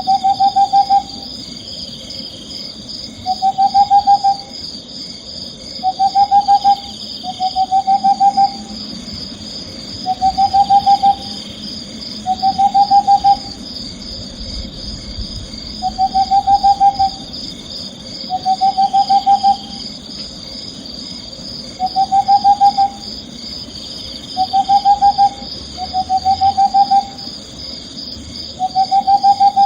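An owl calling over and over: each call is a quick trill of pulsed notes about a second long, rising slightly in pitch, repeated roughly every two seconds. A steady high-pitched shimmering layer runs underneath.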